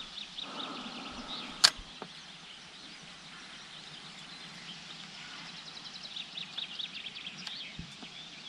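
A spinning-rod cast: the line hisses out for about a second and ends in one sharp, loud click about a second and a half in. After it a low steady background remains, with a repeated high trill now and then.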